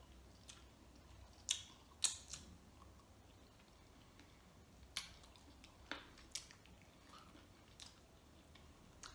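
Eating mouth sounds from picking a boiled chicken wing bone by hand: scattered sharp lip smacks and sucking clicks between quiet pauses.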